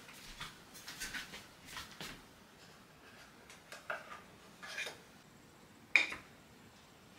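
Quiet, scattered clinks and taps of crockery and glassware being handled on a wooden desk, with the sharpest, briefly ringing clink about six seconds in as a piece is set down.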